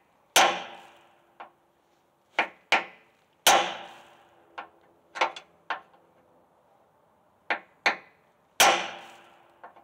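Hammer blows on a punch driving at a drilled-out half-inch factory rivet: about a dozen sharp metallic strikes in irregular groups, the three heaviest leaving a ringing tail. The rivet, swollen tight in its hole, is not budging.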